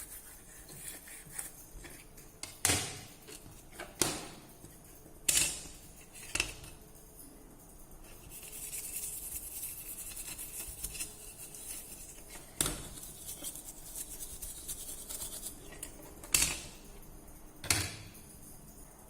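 Small tools and phone parts being handled during a repair: sharp clicks and taps every second or so, with a stretch of soft scraping or rubbing in the middle.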